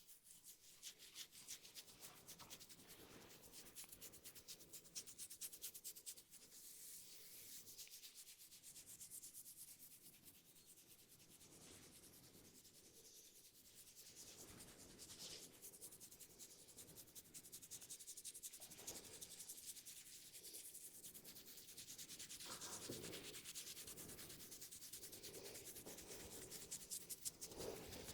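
Faint, fast rubbing of hands over hair and scalp in a head massage, a dense continuous rustle of rapid strokes.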